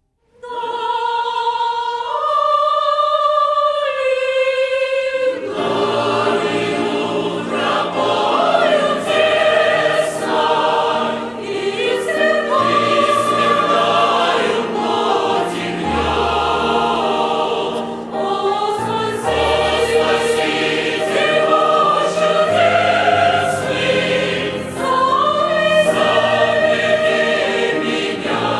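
A choir singing. It opens with a few long held notes on a single melodic line, and the full choir comes in with several parts about five seconds in.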